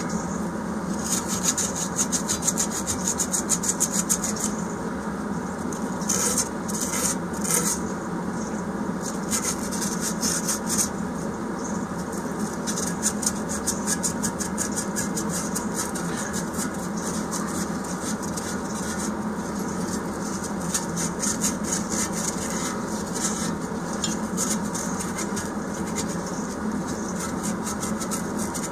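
120-grit emery cloth rubbed in quick, repeated strokes over the gasket face of a Chinese diesel heater's heat exchanger casting, scrubbing off leftover gasket material, over a steady background hum.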